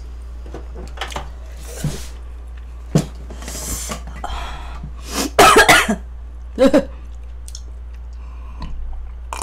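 A woman coughing and clearing her throat while eating: a loud cough about five and a half seconds in and a shorter one a second later, after a few light clicks and some breathy noise, over a steady low hum.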